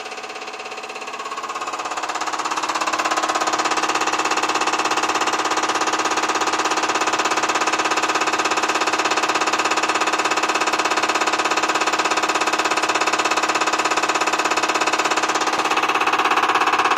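Common rail diesel test bench running with the injector firing in very fast, even pulses, a steady rapid buzzing rattle. It builds up over the first few seconds and shifts in tone near the end.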